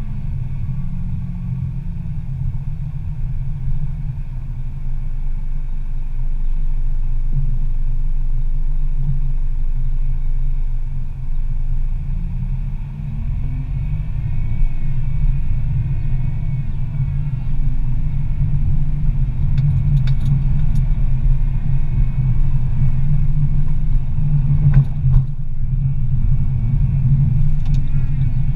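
Steady low rumble of a car's engine and tyres driving in slow city traffic. A few brief clicks or taps come about 20 seconds in and again about 25 seconds in.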